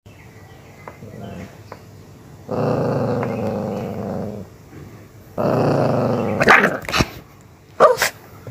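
Miniature pinscher growling in two long, low rumbles, then a few sharp barks near the end.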